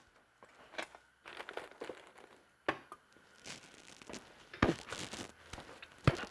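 Engine parts and tools being handled on a workbench during engine disassembly: irregular rustling and knocking, with three sharper knocks spread through, the last near the end.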